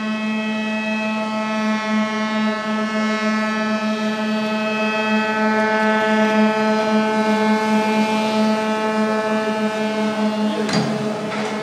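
A ship's horn sounding one long, steady blast as a launch salute. Near the end, a rush of water and splashing joins in as the hull sliding into the harbour throws up a wave.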